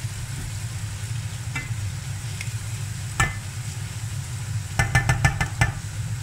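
Chopped onion sizzling in olive oil in a ceramic-coated pan while a silicone spatula stirs it, over a steady low hum. Near the end, a quick run of about seven light knocks as the spatula is tapped against the pan.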